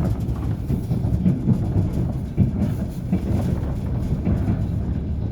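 Passenger train running, its wheels clattering over the rail joints under a steady low rumble, heard from inside the carriage.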